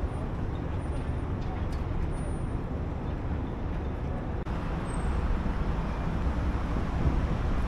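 Steady low rumble of moving vehicles, changing abruptly about four and a half seconds in.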